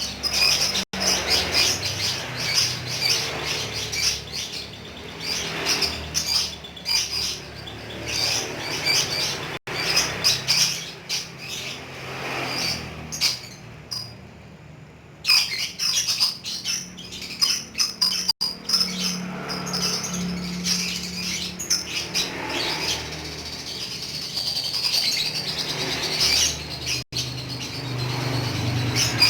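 Lovebird chattering in long, rapid strings of high-pitched chirps (the 'ngekek' chatter prized by Indonesian bird keepers), with a short pause a little before halfway.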